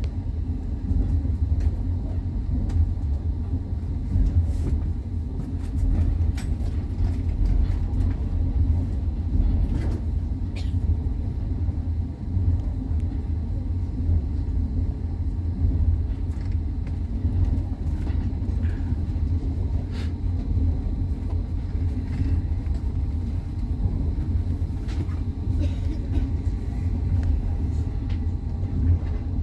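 Russian passenger train running on the rails, heard from inside the carriage: a steady low rumble of the wheels with a few scattered sharp clicks and knocks.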